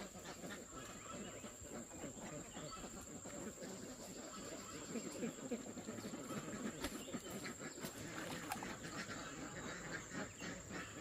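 A flock of domestic ducks quacking and chattering continuously, many short overlapping calls.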